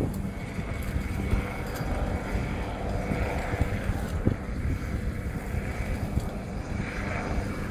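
Boat engines idling with a steady low hum while wind rumbles on the microphone.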